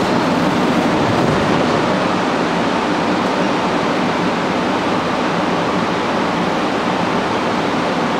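Montreal MR-63 rubber-tyred metro car running, heard from inside the car as a steady, even rushing noise.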